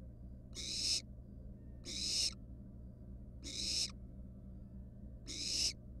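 Barn owl nestlings giving their hissing begging calls, the so-called 'snoring'. There are four breathy hisses, each about half a second long, that swell and cut off sharply, spaced about a second and a half apart, over a low steady hum.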